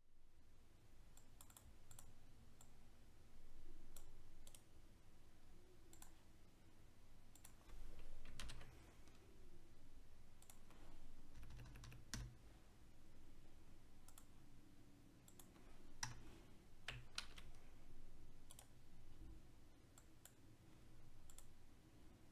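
Faint, scattered clicks of a computer keyboard and mouse, a dozen or so at uneven intervals, over a low steady hum.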